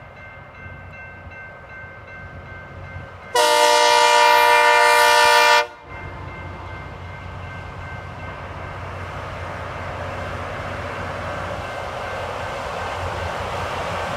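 LORAM rail grinder sounding its horn in one long blast of about two seconds, then the grinder working the rail as it approaches: a broad hiss and rumble growing steadily louder.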